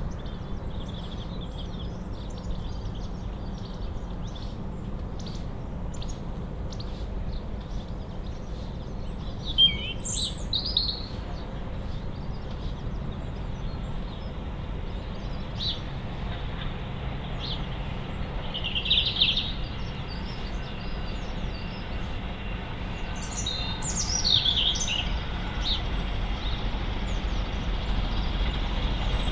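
Small birds chirping and calling now and then over a steady low background rumble, which grows slightly louder near the end.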